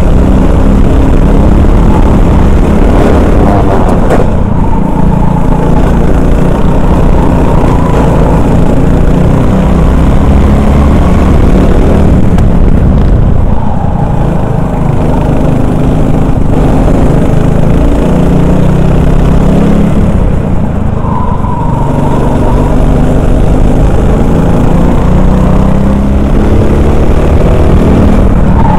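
Honda 390cc four-stroke kart engine running at racing speed, heard from the driver's seat. The revs climb and then drop three times, about four, thirteen and twenty-one seconds in, as the driver lifts off for corners.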